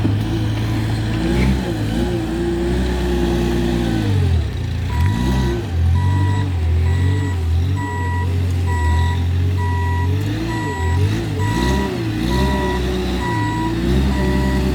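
JCB 155 skid steer loader's diesel engine running, its revs rising and falling as the machine works. From about a third of the way in, its reversing alarm beeps at a steady, even pace.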